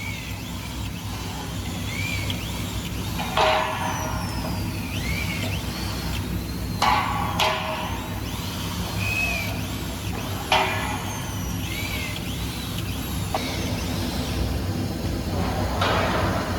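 Steady industrial machinery hum with a few sharp metallic clanks and knocks, one about three seconds in, two close together near the middle and one a little later.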